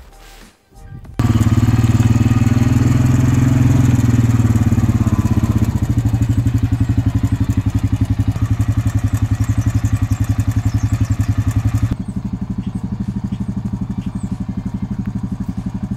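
Quad bike (ATV) engine running close by, setting in suddenly about a second in with a steady, rapid pulse; it drops a little in level about three-quarters of the way through.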